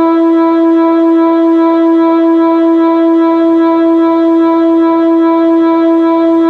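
Whelen WPS-2906 electronic outdoor warning siren sounding a loud, steady tone held at one pitch without rising or falling.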